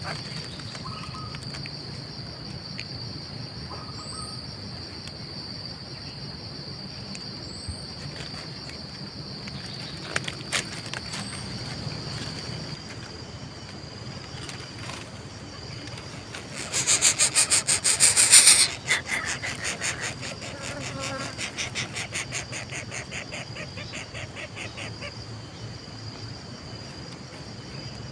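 Steady high-pitched insect trill, like crickets, with a louder rapid buzzing burst about two-thirds of the way through that trails off into a fading pulsed trill.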